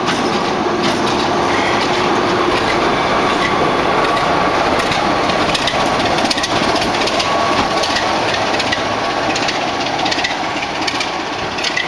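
Diesel train moving past at close range, a loud steady rumble with many quick clicks of wheels over the rail joints.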